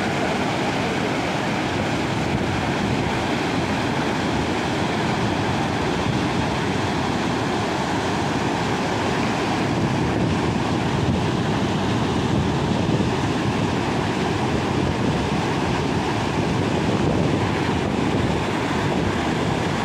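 Muddy floodwater rushing through rocky rapids in a swollen river: a steady, loud roar of churning water.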